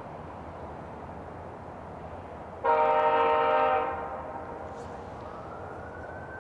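Diesel locomotive air horn sounding one short blast of several notes at once, about a second long, starting suddenly a little over two and a half seconds in, over a steady low rumble.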